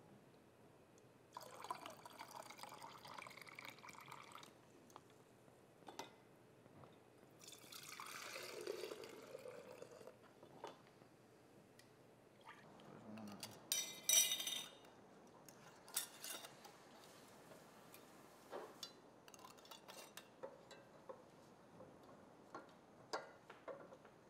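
Chicken broth poured through a plastic funnel into glass canning jars, twice. A sharp clink comes about halfway through, then light clicks and taps of metal canning lids and rings being set on the jars.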